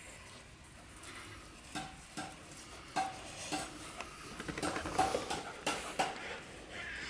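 Adult Rottweiler and puppies playing rough on grass: scattered short, sharp noises, coming thickest about five seconds in.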